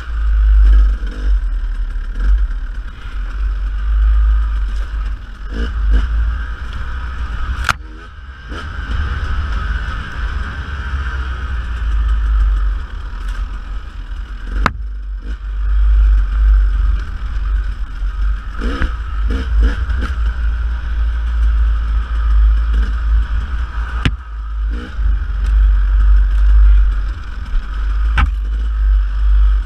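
Dirt bike engine running and revving over rough trail, under a heavy low rumble of wind on the microphone, with several sharp knocks along the way.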